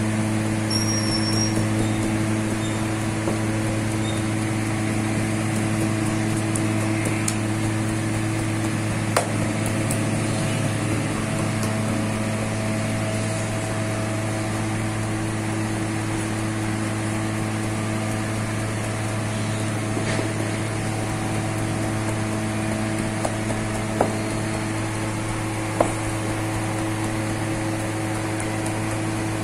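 Steady low hum of running bakery machinery, with a few sharp knocks, one about nine seconds in and two close together near the end.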